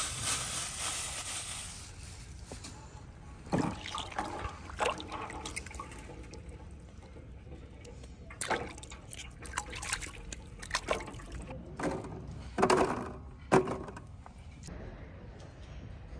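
Peeled garlic cloves being washed by hand in a stainless steel basin of water: running water at first, then scattered splashes and sloshes as the hands scoop and rub the cloves.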